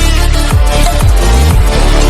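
Loud electronic dance music with heavy deep bass notes that drop in pitch, a falling bass sweep about halfway through.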